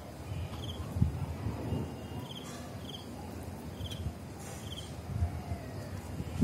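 Crickets chirping at night: short, pulsed chirps coming every second or so, over an uneven low rumble.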